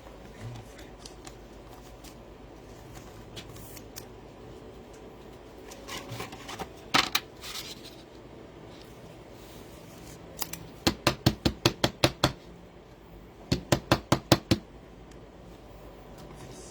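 Trading card packs and cards being handled on a table: a short crackle of pack wrapping about halfway through, then two quick runs of sharp clicks, about eight a second, as the cards are worked.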